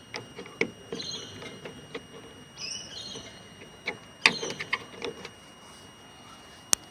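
Scattered clicks, taps and light knocks of hand work on a car door's interior handle assembly as it is being taken off, with a couple of short high squeaks and one sharp click near the end.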